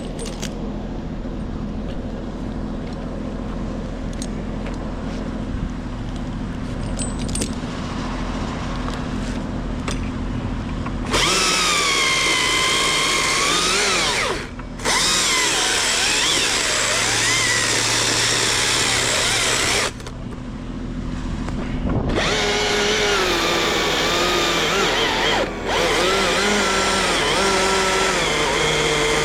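Husqvarna chainsaw cutting at full throttle in three long runs, its pitch sagging and recovering as the chain loads in the wood, with a brief dip and then a two-second pause between runs. Before the cutting starts, a quieter steady engine hum runs for about ten seconds.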